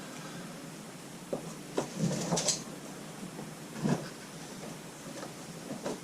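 Shelving parts being handled and fitted together: a handful of separate knocks and clunks, a cluster of them about two seconds in and a louder one near four seconds.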